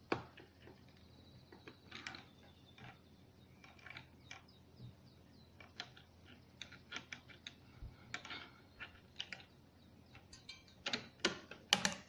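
Scattered small clicks and taps of metal and plastic parts as a Cooler Master Hyper 412S tower CPU cooler is seated onto its mounting bracket, with a few louder knocks near the end.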